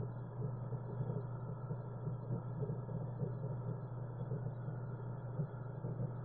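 Aquarium heard from underwater: a steady low pump hum under continuous bubbling from a rising air-bubble stream.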